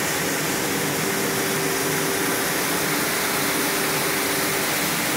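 Motor-driven air blower of a puffed-rice (muri) roasting machine running steadily, blowing puffed rice out by air pressure: an even rush of air with a steady hum that drops out near the end.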